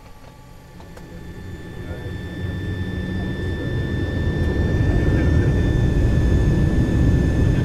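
Avro RJ100's four Lycoming LF507 turbofans spooling up to takeoff power, heard from inside the cockpit. The low rumble grows steadily louder, and a steady high whine comes in about two seconds in.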